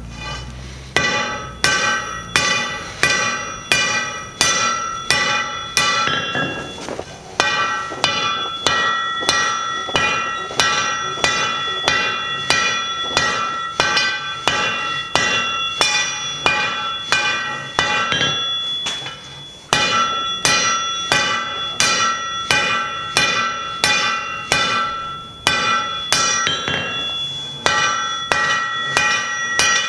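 Hand-hammer blows on the glowing end of a thick steel bar on an anvil, upsetting the bar to make it thicker. The blows come about two a second, each with a ringing metallic clang, and there are short pauses about 7 and 19 seconds in.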